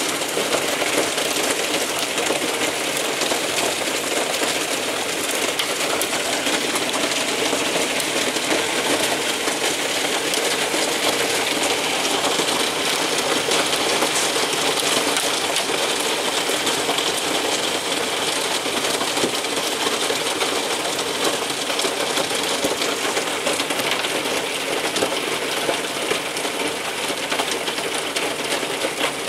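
Hailstorm: hail and rain falling steadily, a dense clatter of countless small hailstone impacts.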